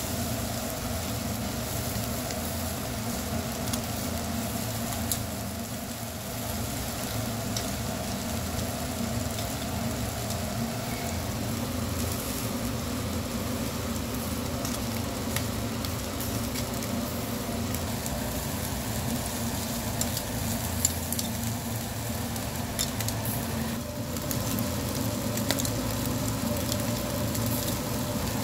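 Eel fillets sizzling on a wire grill over charcoal, with scattered small pops and crackles of fat, over a steady low hum.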